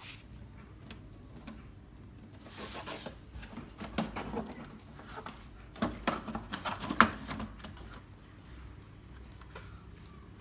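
Plastic back cover of an LED TV being lifted and handled: scattered light knocks, clicks and scraping. It is busiest in the middle, with a sharp click about seven seconds in.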